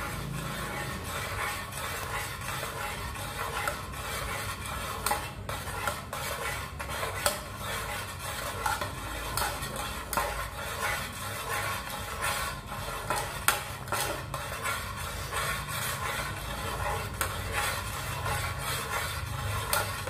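Metal spoon stirring a hot coconut-milk mixture in an aluminium pot, with irregular scrapes and clicks as it knocks against the sides and bottom. Beneath it is a steady low rumble from the gas burner heating the pot.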